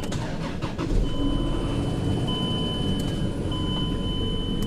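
Chrysler Pacifica's 3.5-litre V6 running with a low steady rumble while it misfires, with a bad wire in the ignition coil harness the cause. About a second in, a steady high electronic tone comes in and breaks off briefly a couple of times.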